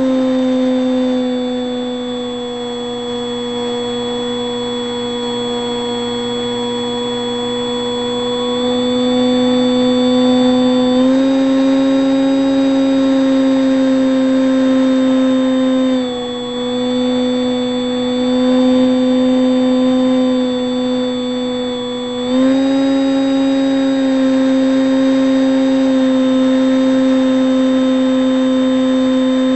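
Electric motor and pusher propeller of a Bix3 model plane, heard from on board: a steady whine with many overtones. Its pitch steps up about 11 seconds in, drops briefly around 16 seconds, and rises again around 22 seconds, following the throttle.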